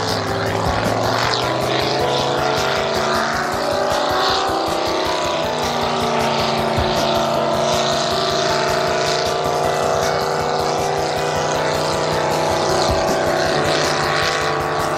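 Racing boat's engine running hard through open exhaust stacks. The note is steady, with its pitch bending a little in the first few seconds as the boat passes.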